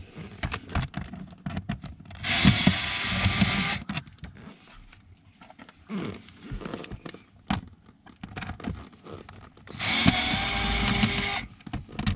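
Cordless DeWalt screwdriver backing Phillips screws out of a car's lower dash panel. It runs in two steady bursts of about a second and a half, one about two seconds in and one near the ten-second mark, with small clicks and knocks of handling between them.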